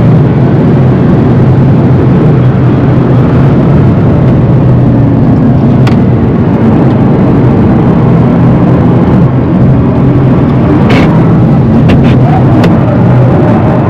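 Rimac Nevera electric hypercar heard from inside the cabin at speed: a loud, steady rumble of road and tyre noise with no engine note. A few brief sharp clicks come through about halfway and again near the end.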